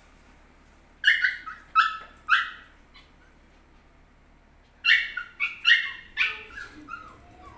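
Dog barking: four sharp, high-pitched barks about a second in, then a quicker string of barks from about five seconds in.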